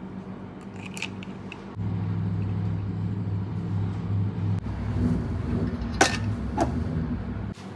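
A steady mechanical hum from a running appliance motor that gets louder about two seconds in and cuts off suddenly near the end, with a few sharp clicks and knocks.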